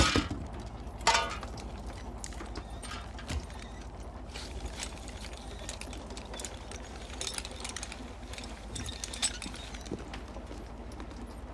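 Junk from an emptied shrimp net clattering onto a wooden boat deck: two loud crashes, the second about a second in, then quieter knocks and rustling as the items are picked through, over a steady low rumble.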